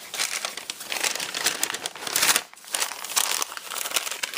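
Wrapping crinkling as it is handled, a run of crackly rustles with a short break about two and a half seconds in.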